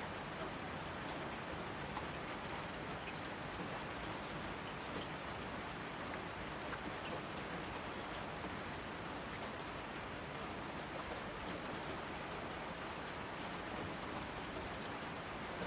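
Steady rain falling, an even hiss with scattered drops ticking sharply.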